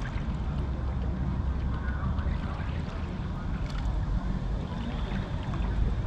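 Steady low outdoor rumble, with faint distant sounds of the city on top of it.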